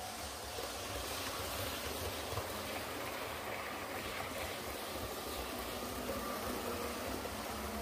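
Hornby Class 390 Pendolino model trains running on the layout's track: a steady rumble of wheels on rail with a faint motor hum, growing a little louder about a second in as a train comes close.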